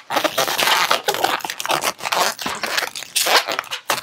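Inflated latex 260 twisting balloons rubbing and scraping against each other and the hands as a small bubble is twisted into the black balloon, a dense run of irregular rubbing noises.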